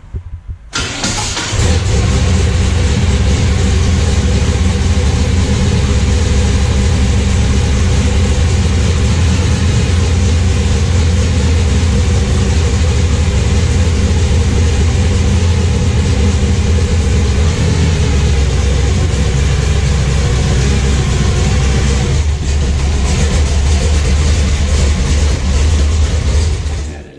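1972 Camaro's carbureted engine starting just under a second in, then running loud and steady, with a brief dip in level late on.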